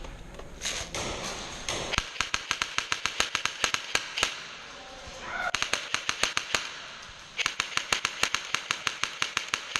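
Airsoft rifle firing on full auto in three bursts of rapid, even shots, about ten a second. The second burst is short.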